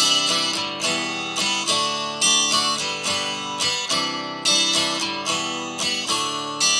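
Acoustic guitar strumming a steady, repeating chord pattern: the instrumental intro of a song.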